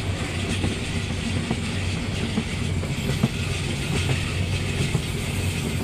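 Steady running noise of a moving passenger train heard from inside the carriage, with a few sharp clicks of the wheels over the rail joints.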